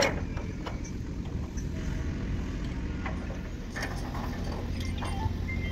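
A steady low rumble of a machine running, with a few short knocks and clicks as the rubber conveyor belt is worked around the steel pulley frame.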